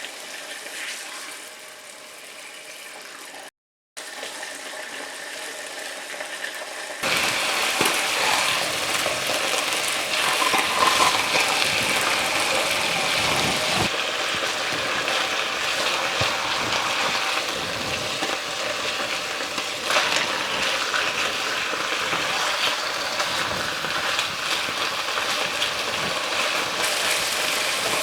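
Pork chops sizzling in hot oil in a skillet as they brown, a steady hiss with small pops. It breaks off briefly about three and a half seconds in and is louder from about seven seconds in.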